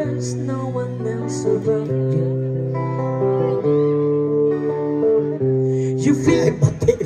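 Electric guitar playing a slow run of held chords, breaking off near the end in a few sharp knocks.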